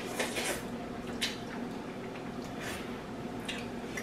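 Spicy ramen noodles being slurped and eaten: a few short, wet slurps, the clearest just after the start and about a second in.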